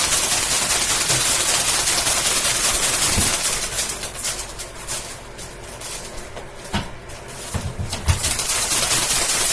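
Plastic grocery bag caught in a running Amazon Basics box fan, rattling and flapping loudly against the blades and grille as it is shredded. About four seconds in the rattle eases off, with a few knocks, then it comes back loud near the end.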